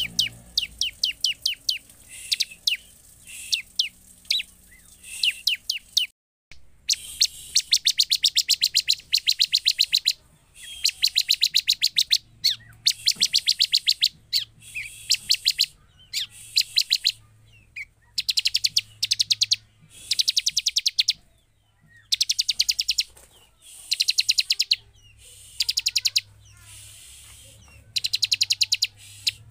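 Bar-winged prinia (ciblek) calling: bursts of very rapid, dry, high-pitched notes, each about a second long, repeated over and over with short pauses. There is a brief dropout about six seconds in.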